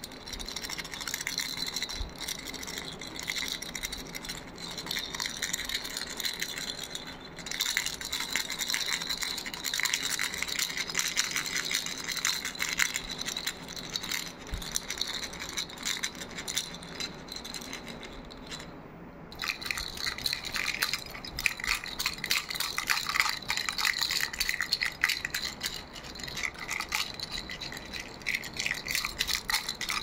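Yellow smiley-face baby rattle ball shaken by hand, giving a rapid continuous rattling, with a short break about two-thirds of the way through.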